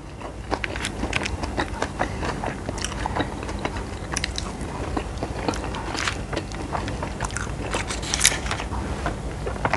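A person chewing and biting food close to the microphone, a dense, irregular run of small clicks and crunches.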